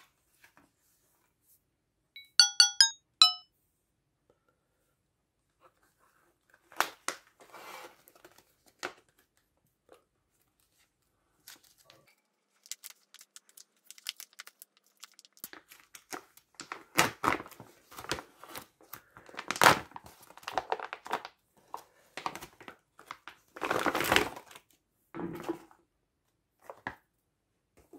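A brief run of chiming musical tones about two seconds in, then the crinkling, tearing and rustling of a plastic MRE ration pouch being torn open and handled: scattered crackles and clicks that grow busier, loudest near the end.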